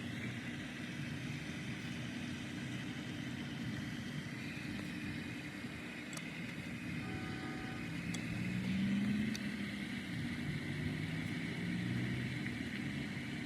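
Steady hum of road traffic, with one vehicle passing louder about two-thirds of the way through.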